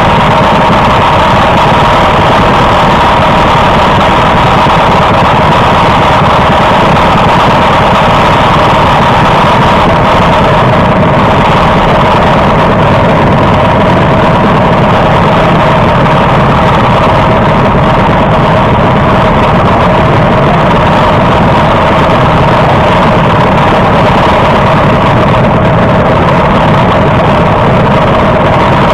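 Briggs & Stratton LO206 four-stroke go-kart engines idling steadily on the grid, very loud and close to the microphone, with no revving.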